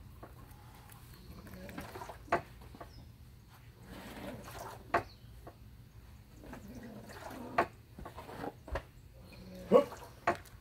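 A person performing a taekwondo form: four sharp, short sounds about two and a half seconds apart as the techniques are snapped out, the last the loudest, with fainter movement and breath sounds between.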